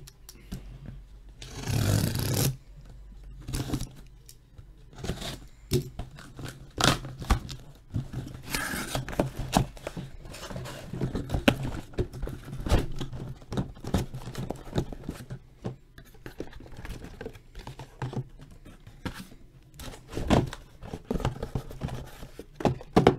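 Cardboard case scraping and rubbing against tightly packed sealed card boxes as it is shaken and worked loose, with many small knocks. A loud scraping rush comes about two seconds in, and heavier thumps come near the end as the stuck boxes slide free.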